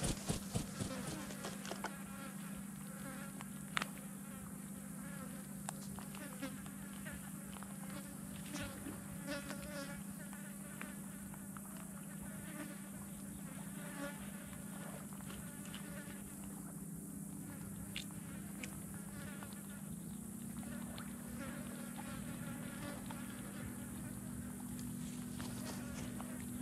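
Flies buzzing around a dead fish close to the microphone, a steady drone, with a second, slightly higher buzz joining about two-thirds of the way through. A few sharp taps and clicks come from turkey vultures pecking and tugging at the fish, several in quick succession in the first second.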